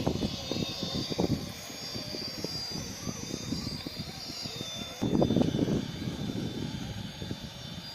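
Electric motor of an RC 4x4 scale crawler whining as it drives, over irregular crackling and scraping from the truck working across rough ground. The crackling is loudest about five seconds in.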